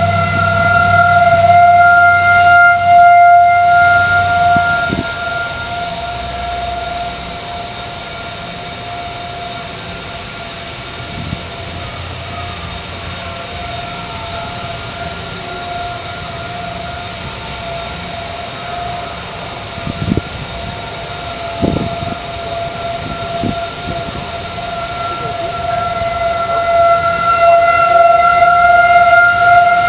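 Distant Federal Signal 2001 rotating outdoor warning siren sounding one steady tone, loud at first, fading as the horn turns away and swelling back near the end. A low rumble runs under the first few seconds, and there are a few short thumps a little past the middle.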